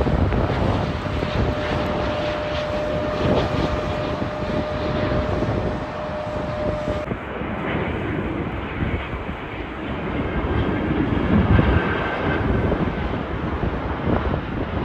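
Jet airliner engines at landing: an Airbus A350's Rolls-Royce Trent XWB engines running with a steady whine over engine noise as it touches down, then a cut about halfway through to a Boeing 787 Dreamliner on final approach, its engines a steady rush.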